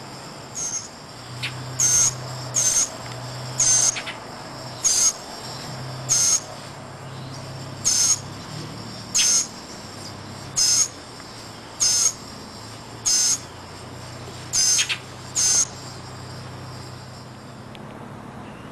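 Northern mockingbird giving short, harsh calls over and over, roughly one a second, about a dozen in all.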